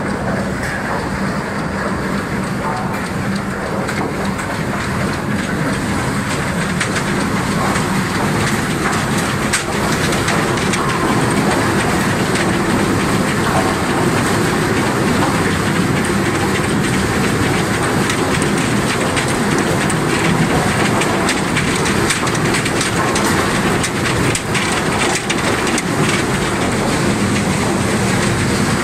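Tooth roller log debarker running with logs tumbling and knocking against its toothed rollers and each other as the bark is stripped off: a dense, continuous clatter of many small knocks over a steady hum.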